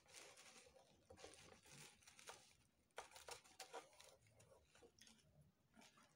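Faint rustling and scratching of a stiff moulded mesh fascinator and headband being handled during hand-stitching, with thread drawn through the fabric. Irregular soft rustles, a few sharper scratches about three seconds in.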